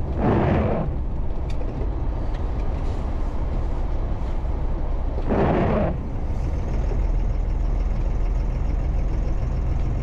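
MAN LE280B 4x4 truck's diesel engine running steadily at low speed, with two short hissing bursts about five seconds apart, one at the start and one about halfway through.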